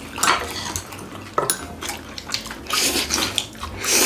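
Eating at the table: chopsticks clicking against plates and bowls, with wet chewing and slurping of food in several short noisy bursts.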